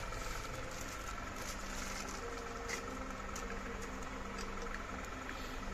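A steady mechanical hum with a few faint clicks and taps as metal candle-stand parts are handled.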